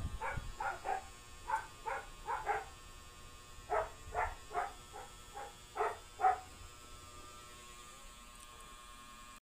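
A dog barking in short, separate yaps, about two a second, in two runs with a pause in between; the barking stops about six seconds in.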